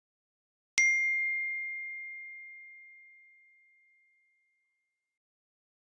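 A single bright ding, struck once about a second in, its clear tone ringing out and fading away over about four seconds.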